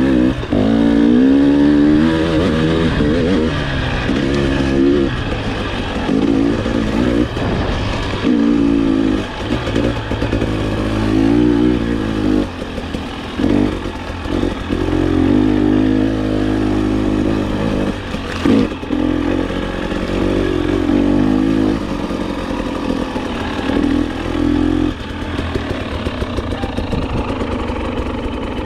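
2020 KTM XC-W 300 TPI two-stroke dirt bike engine revving up and down over and over as the throttle is worked on a trail ride, with a few sharp knocks. Near the end the revs settle lower and steadier.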